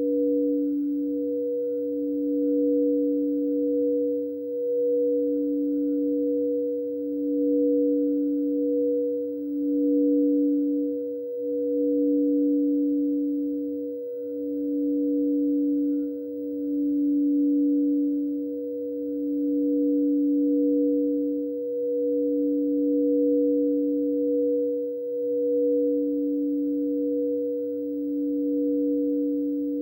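Two frosted quartz crystal singing bowls sung by mallets circled around their rims, holding two steady pure tones, one low and one higher, that swell and dip every couple of seconds.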